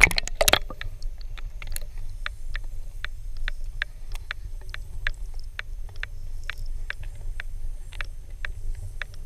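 A splash as the camera goes under the surface, then a muffled underwater rumble with sharp clicks about three times a second.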